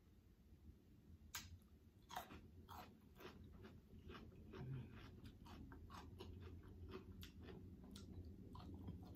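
Faint chewing of food: soft, wet mouth clicks and smacks, a few louder ones in the first three seconds.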